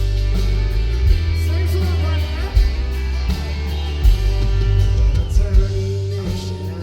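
Live band playing an instrumental passage: guitar over bass and drums.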